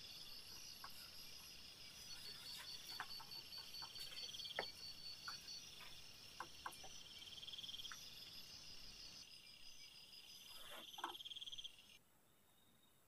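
Crickets chirping at night in quick, even pulse trains, with a few faint scattered clicks and taps. All of it cuts off abruptly near the end.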